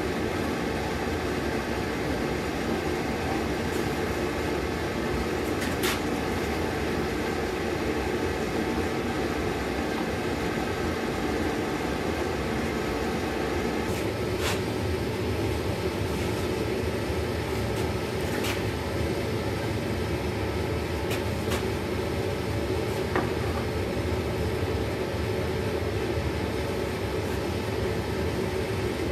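Gas forge burner running with a steady rushing noise while a sword blade heats for hardening, with a few faint metallic clicks.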